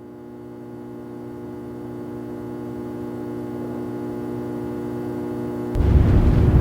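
A steady low drone of several held tones swelling slowly louder, then a loud rumbling rush cutting in suddenly near the end.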